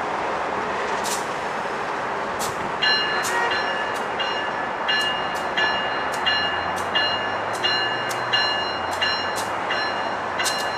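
Approaching train rumbling steadily. About three seconds in, its bell starts ringing, struck about three times every two seconds.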